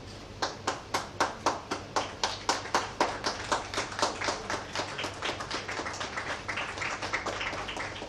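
An audience clapping. One close pair of hands claps steadily at about four claps a second, and the applause thins out near the end.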